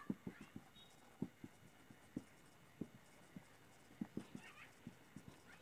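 Marker pen writing on a whiteboard: faint, irregular little taps and ticks as the tip strikes and lifts from the board, with a few soft squeaks.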